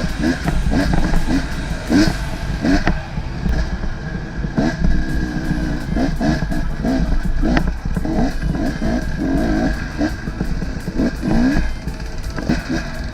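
Off-road motorcycle engine revving up and down again and again, with scattered knocks and clatter.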